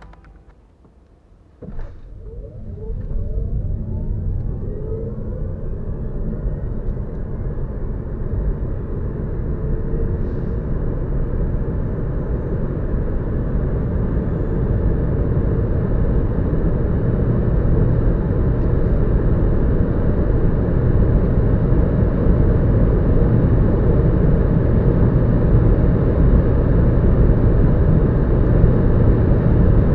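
Kia e-Soul electric car heard from inside the cabin, accelerating flat out from standstill to its 176 km/h top speed. The sound starts suddenly about two seconds in. The electric motor's whine rises in pitch over the first several seconds, while tyre and wind noise build steadily and keep getting louder to the end.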